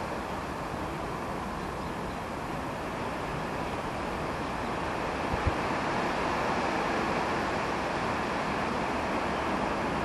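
Steady rushing outdoor background noise that grows a little louder about halfway through, with one short thump a little after five seconds.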